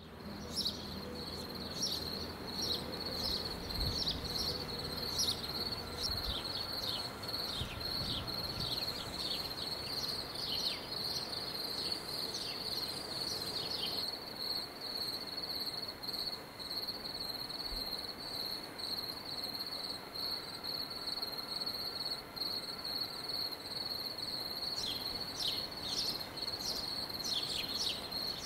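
Cricket trilling steadily on one high pitch, with short falling chirps over it now and then, mostly in the first half and again near the end.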